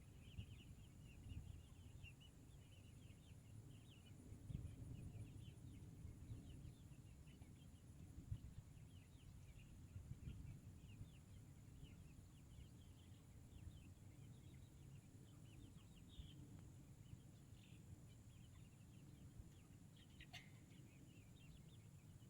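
Near silence: faint outdoor ambience with many short, high chirps scattered throughout over a low rumble, and one slightly stronger chirp near the end.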